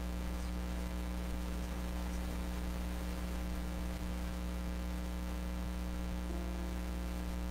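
Steady electrical mains hum, a low constant drone with an overtone, carried on the audio feed.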